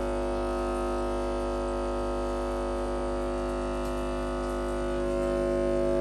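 Homemade PVC-pipe balloon air horn sounding one steady, low droning tone, growing a little louder and brighter about five seconds in.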